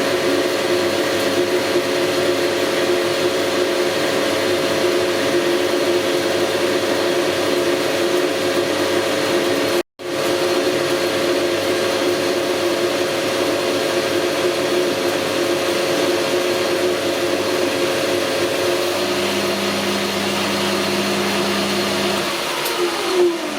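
Metal lathe running steadily under power as it machines a steel plate. Near the end the spindle is switched off and winds down, its pitch falling.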